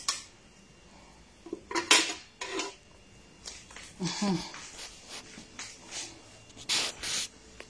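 Dishes and cutlery clinking and knocking in a handful of separate sharp strikes, with a brief scraping rush near the end. A short murmur of voice is heard about four seconds in.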